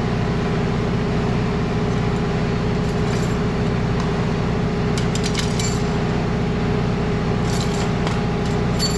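Several small clicks and clinks of plastic and metal as the door handle's trim tab and tools are handled: once about three seconds in, a cluster around five seconds, and more near the end. A steady low mechanical drone runs underneath.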